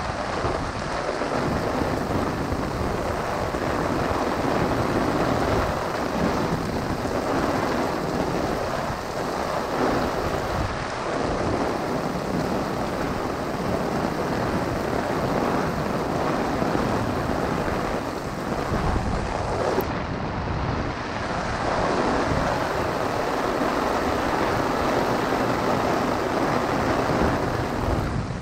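Heavy downpour falling on a golf umbrella overhead and on the wet street, a steady noise of rain, with wind buffeting the microphone.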